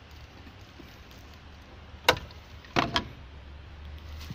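Two sharp knocks, one about two seconds in and a rattling double knock just before three seconds, over a low steady hum.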